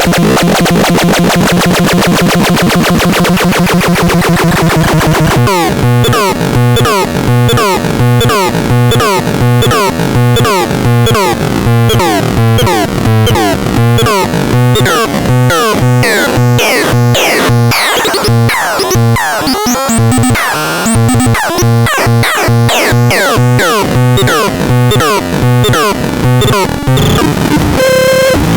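Synthesizer playing harsh, buzzy electronic tones: a dense held drone for about five seconds, then a fast repeating pulsing pattern with quick falling pitch sweeps.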